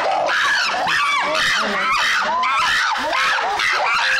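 A group of chimpanzees screaming in alarm, with many overlapping calls rising and falling without a break. It is panic at a snake that one of them has just thrown.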